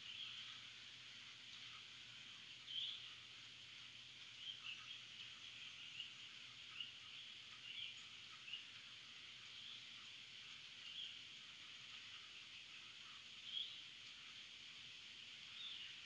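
Faint scattered bird chirps, a dozen or so short calls, over a steady hiss of rain.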